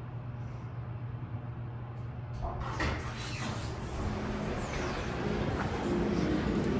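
Schindler 330A hydraulic elevator: a steady low hum inside the car, then a couple of clicks about two seconds in and the doors sliding open, letting in louder, busier background noise.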